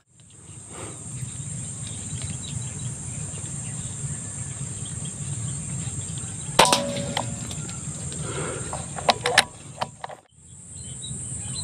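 Steady high-pitched drone of insects, with a single sharp crack about six and a half seconds in, a shot from a scoped PCP air rifle at a duck, followed about two and a half seconds later by a few short clicks. The insect drone breaks off briefly near the end.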